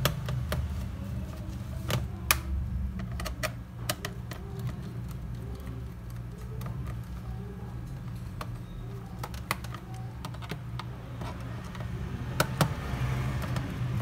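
Scattered small clicks and ticks of a screwdriver working the screws out of a laptop's plastic back cover, irregular and a few louder than the rest, over a low steady hum.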